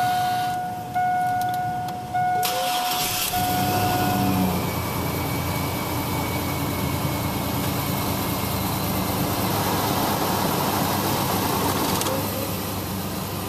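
A 4.3-litre V6 in a 2003 Chevy S10 pickup cranks briefly and starts about two and a half seconds in, picks up, then runs at a fast idle that slowly eases down. A steady dashboard warning tone sounds over the start and stops soon after the engine catches.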